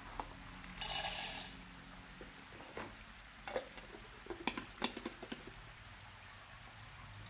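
Roasted peanuts poured from a plastic tub into the plastic bowl of a manual food chopper: a short rattling rush about a second in. Then a run of scattered clicks and knocks as the chopper is worked by hand to chop the nuts coarsely.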